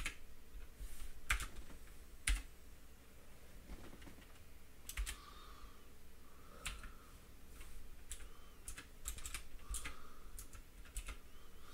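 Computer keyboard keystrokes: irregular taps with short pauses as a number is typed, deleted and retyped.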